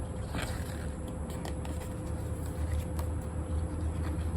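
Steady low background rumble with a faint steady tone, and a few light clicks and taps from a model's box and packaging being handled.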